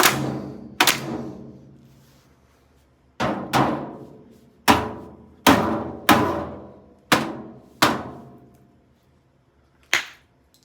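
Hammer blows striking an Oster microwave oven, about ten hard, unevenly spaced strikes, each with a short metallic ring dying away after it. The blows are aimed at breaking the door interlock.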